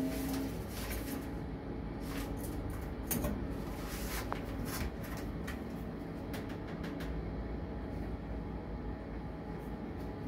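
Passenger lift car travelling, heard from inside the cabin: a steady low rumble and hum, with scattered clicks and rattles in the first half.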